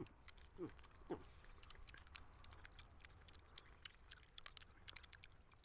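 Quiet eating sounds: faint clicks and crackles as small roasted birds are picked apart by hand and chewed, with two short falling hums from a person about half a second and a second in.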